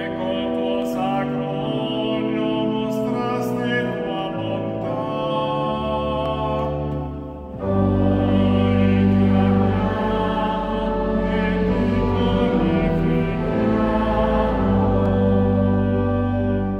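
A 1968 Tamburini church pipe organ playing the melody of a litany chant in sustained, stepwise-changing chords. About seven and a half seconds in it swells into a louder, fuller passage with deep bass notes for the refrain.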